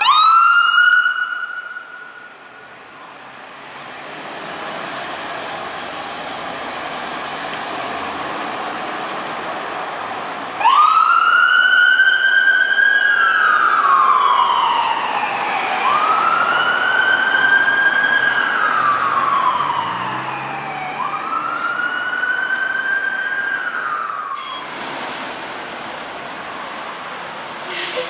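Fire rescue truck's siren. A quick rising yelp fades out within the first couple of seconds, leaving traffic noise. About ten seconds in, a loud wail starts abruptly and rises and falls slowly, about five seconds a cycle, three times, before cutting off near the end.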